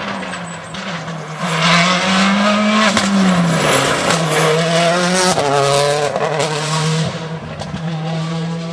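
Citroën Xsara WRC rally car's turbocharged four-cylinder engine accelerating through a bend, the note climbing and then dropping several times with gear changes. It is loudest as the car passes close by and fades near the end.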